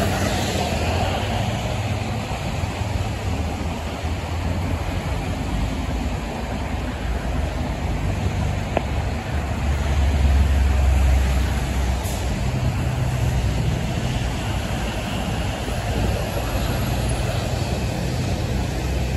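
Highway traffic passing on a wet road: a steady hiss of tyres with the low running of truck diesel engines, loudest about ten seconds in as a box truck and a dump truck go by.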